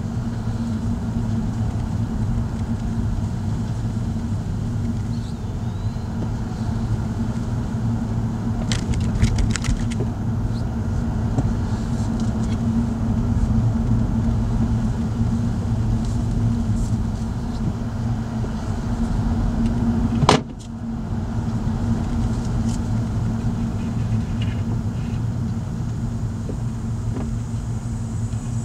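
Steady drone of a car's engine and tyres on a paved road, heard from inside the cabin, with a sharp click about two-thirds of the way through.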